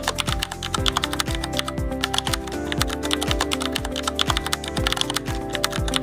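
A rapid, continuous typing sound effect, dense clicks of keys, laid over background music with a steady thumping beat.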